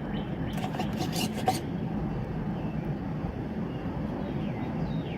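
Clattering knocks from a radio-controlled toy truck for about the first second and a half, then a steady low rumble with a few faint bird chirps near the end.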